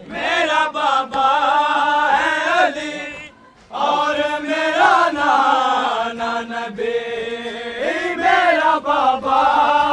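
Men's voices chanting a noha, a Shia mourning lament, in a slow wavering melody, with a short pause about three and a half seconds in.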